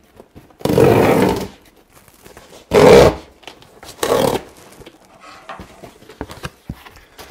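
Packing tape ripped off the top of a cardboard box in three tearing pulls, the first about a second long and the next two shorter, followed by faint rustles and taps.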